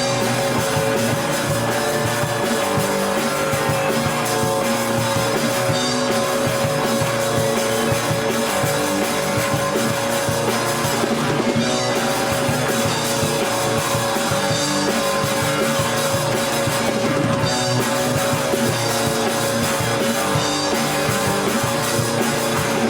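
Rock music with electric guitar and drum kit, over one long sustained note.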